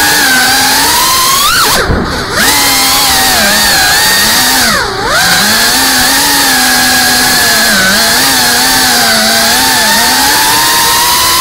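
FPV quadcopter's brushless motors and propellers whining, the pitch rising and falling with the throttle. The whine drops and snaps back up about two seconds in, and dips and climbs again about five seconds in.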